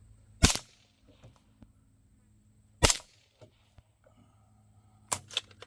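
Suppressed 9mm MP5 SD-type carbine with an integral suppressor firing 115-grain Magtech rounds: single suppressed shots about half a second and three seconds in, then two in quick succession near the end.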